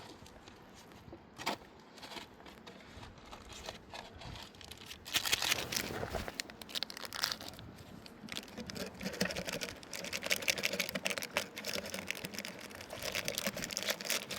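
Plastic packaging crinkling and rustling as it is handled. There are a few scattered crackles at first, then a dense stretch of crackling from about five seconds in.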